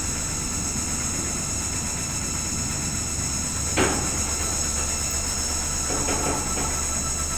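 Washing machine running with a steady hum and a high-pitched whine, with a sharp knock about four seconds in and a few brief scrapes near the end.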